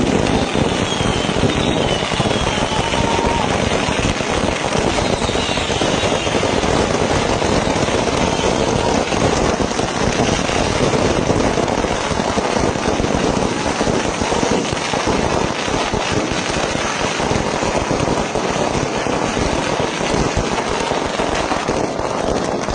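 A long string of firecrackers going off in a continuous, dense crackle of many rapid bangs, without a break.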